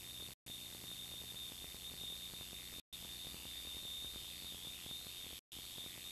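Steady hiss and hum with a thin high whine, typical of a worn videotape's sound track carrying no programme sound. It cuts out completely three times for a split second.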